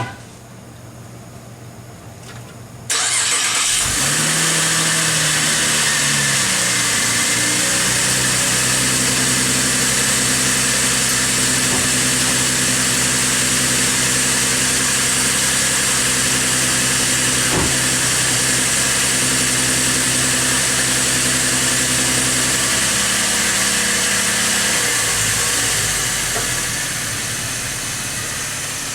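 A 2013 Chevrolet Camaro's 3.6-litre V6 starts suddenly about three seconds in, right after its oil change. It flares up briefly, then settles to a steady idle. Near the end the sound drops a little in level.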